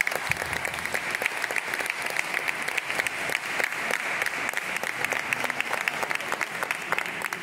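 Audience applauding: many hands clapping in a dense, steady stream of claps.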